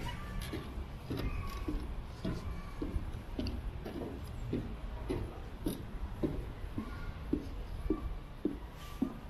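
Footsteps walking at a steady pace on a wooden plank footbridge deck, about two steps a second, over a steady low rumble.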